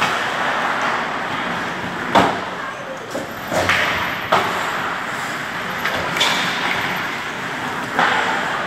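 Ice hockey play on a rink: a steady hiss of skating and rink noise, with about five sharp bangs of the puck and players hitting the boards.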